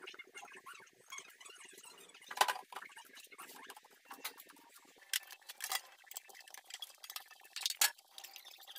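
Small glass and metal decor items clinking and knocking as they are handled, wiped with a cloth and set back on a shelf, with soft cloth rubbing in between. The sharpest clinks come about two and a half seconds in, twice between five and six seconds, and near eight seconds.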